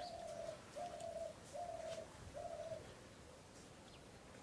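A dove cooing: four short, even coos at a steady pitch, about one every 0.8 seconds, stopping about three seconds in.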